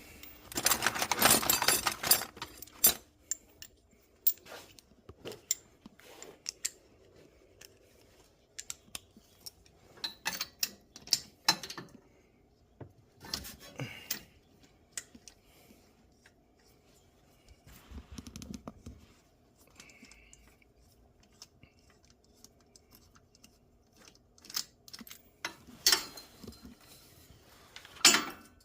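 Metal hand tools clinking and clicking as a socket extension and wrench are fitted and worked to take out a spark plug. A dense run of clicks comes in the first two seconds, then scattered clinks and clicks.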